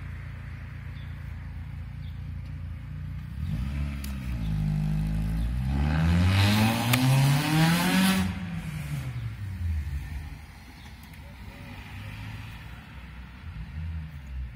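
A motor vehicle drives past, its engine sound swelling, sweeping in pitch and fading, loudest a little past the middle, over a steady low rumble. A single sharp click sounds near the loudest point.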